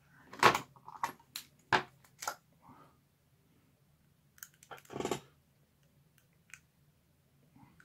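Small clicks and taps of metal parts being handled as the little retaining screw for the handle nut is fitted into an Abu 6500 baitcasting reel: a quick run of clicks in the first couple of seconds, then another cluster about five seconds in.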